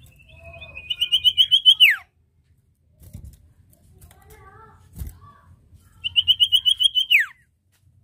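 Common iora (cipoh/sirtu) calling twice: a fast run of high repeated notes that ends in a steep falling 'nyiull' whistle, the first call right away and the second about six seconds in. Softer chirps come between the calls, along with a single knock around the middle.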